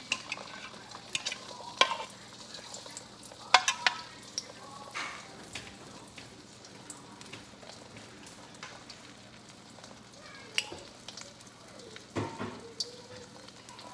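Three beaten eggs sizzling in hot olive oil in a wok: a steady low hiss with scattered crackles and pops, the loudest of them in the first four seconds.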